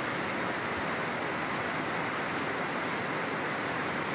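Steady noise of a heavy tropical downpour mixed with the rushing of a flooded river, with no break or change.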